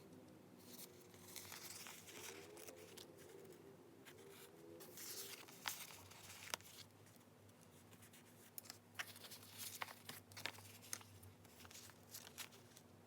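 Paper being rustled and torn softly for diary decorating, then a run of light ticks and taps about two-thirds of the way in.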